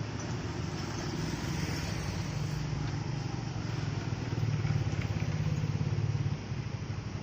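Small single-cylinder four-stroke motorcycle engine running through a stock Honda GL muffler converted into a 'kleper' exhaust, with a fast, even exhaust pulse. It picks up from about four seconds in and drops back to idle about two seconds later.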